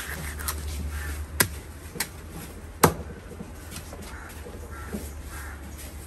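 Knife cutting at a tuna's head on a wooden chopping block: three sharp knocks, the loudest about three seconds in. Birds call faintly in the background.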